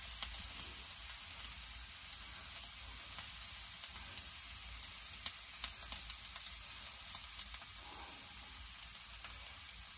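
Steak frying in butter in a Hexclad frying pan: a steady sizzle with a few small pops.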